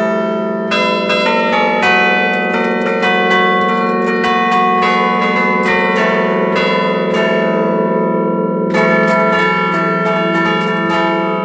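Church bells struck by hand from a belfry keyboard in the Bergamasque 'allegrezza' style: quick strikes on several tuned bells weave a tune over the steady hum of a deep bell. The strikes thin out briefly about seven seconds in, then pick up again.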